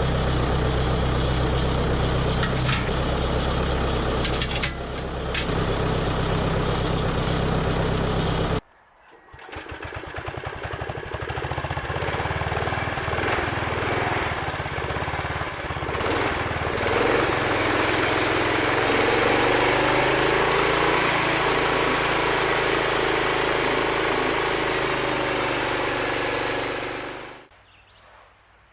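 Small engine of a homemade band sawmill running steadily under load. It stops abruptly about nine seconds in, then comes back faint and builds up over a few seconds, runs steadily, and falls away near the end.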